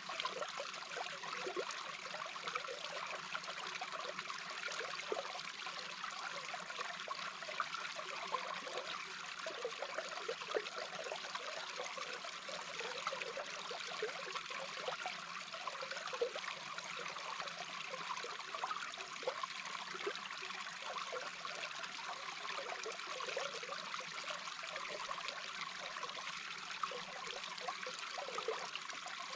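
Babbling brook heard underwater: a steady rush of flowing water with a dense scatter of small bubbling blips.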